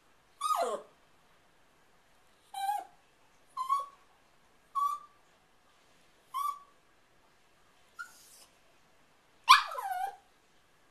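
Small terrier giving about seven short, high-pitched barks while watching through a window, roughly one every second or so. Several slide down in pitch, and the loudest and longest comes near the end.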